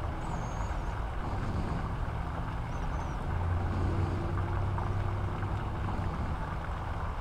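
Low, steady engine rumble of an idling vehicle, a little stronger for a few seconds in the middle.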